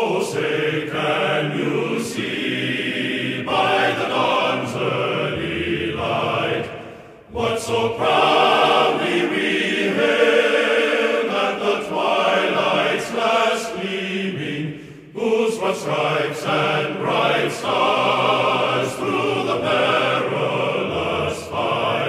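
Choral singing as background music, in phrases with short breaks about 7 and 15 seconds in.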